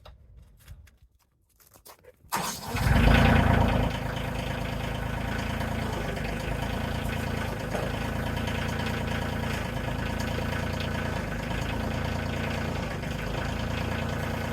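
An engine starting about two seconds in, loudest for about a second as it catches, then settling into a steady idle.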